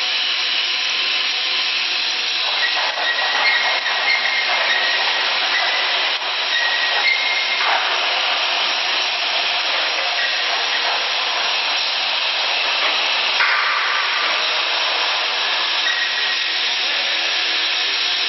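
QTJ4-40 brick making machine running, its electric motor and vibrator giving a loud, steady whir; a faint whine in it changes pitch a few times.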